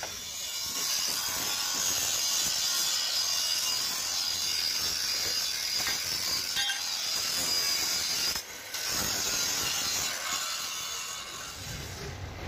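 Steady, harsh hissing and crackling from metalworking on heavy steel plate, with a brief break about two-thirds of the way through.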